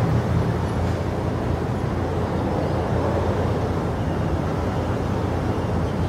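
Steady low rumbling background noise with no distinct calls or knocks in it.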